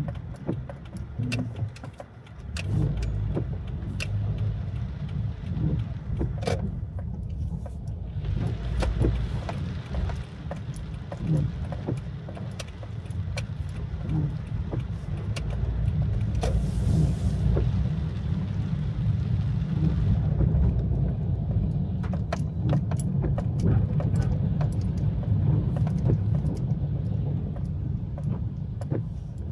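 Car driving in the rain: a steady low road-and-engine rumble with scattered sharp ticks of raindrops striking the car. A hissing wash rises for about ten seconds in the middle.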